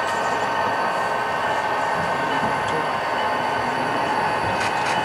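HO-scale model diesel locomotive and boxcar rolling slowly along the layout track: a steady running sound with a few steady humming tones.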